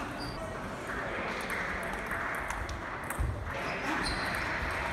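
Table tennis ball being struck by bats and bouncing on the table in a rally: a string of sharp, light clicks, with voices in the background of a large hall.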